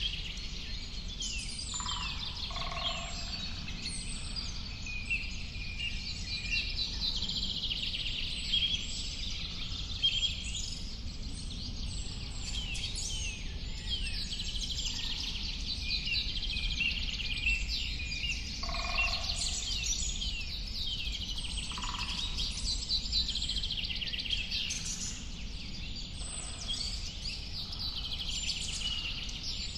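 Several birds singing at once, a dense chorus of quick chirps, trills and rising and falling whistles, with a lower short call now and then. A steady low rumble runs underneath.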